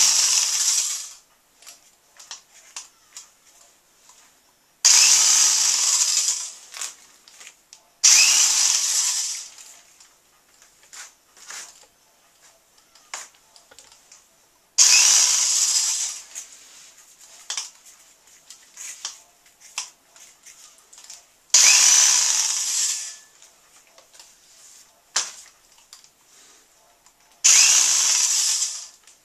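Handheld corded electric drill with a paint-loaded attachment in its chuck, run in six short bursts. Each burst starts sharply and dies away over a second or two as the drill spins down. Small clicks and knocks fall between the bursts.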